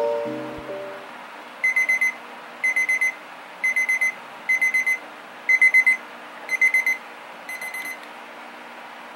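A digital kitchen timer beeps its alarm as the countdown reaches zero: seven quick bursts of about four high beeps each, roughly one burst a second. The last burst is fainter and the beeping stops when the timer is picked up.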